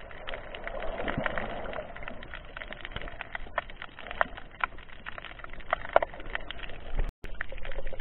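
Underwater ambience picked up by a camera held underwater: a muffled water wash with many irregular crackling clicks. The sound cuts out briefly near the end.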